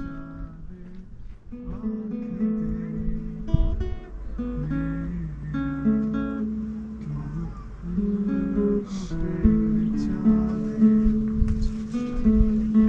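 Acoustic guitar music, plucked and strummed notes with no singing.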